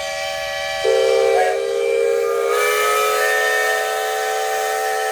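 Several steam whistles blowing together in a loud, steady-pitched chord, with steam hiss. A lower whistle joins about a second in, and another comes in about halfway through.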